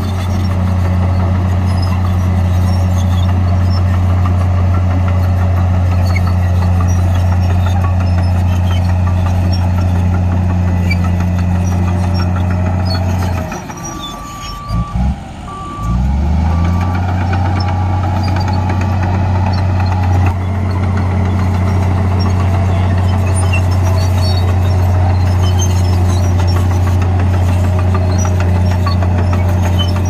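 Komatsu crawler bulldozer's diesel engine running steadily under load while pushing earth. A little under halfway the engine drone drops away for about two seconds while a reversing alarm beeps a few times. The engine then comes back, rising in pitch as it revs up.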